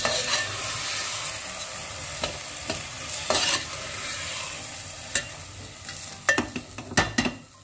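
Soaked rice and peas sizzling in hot oil in a pressure cooker while a metal slotted spoon stirs and scrapes through them: the rice being sautéed with the spices before water goes in. A few sharp knocks of the spoon against the pot come near the end.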